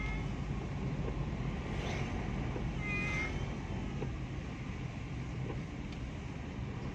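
Persian cat meowing in short calls, one right at the start and a clearer one about three seconds in, over the steady low rumble of a car driving, heard from inside the cabin.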